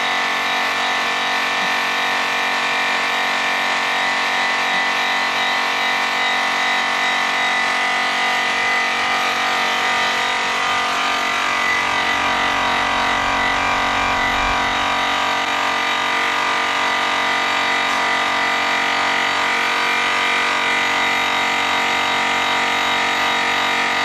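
DeWalt variable-speed polisher running steadily with a yellow airway cutting wheel buffing a metal car wheel: a constant motor whine with the buff rubbing on the metal. A low rumble joins in for a few seconds in the middle.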